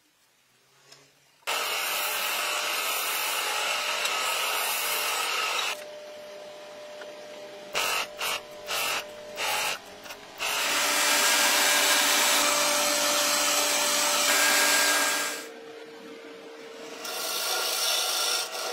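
Wood lathe running while a turning tool cuts into the spinning wood. A loud cutting noise starts suddenly about a second and a half in, breaks into several short bursts around the middle, then runs again and fades before rising once more near the end.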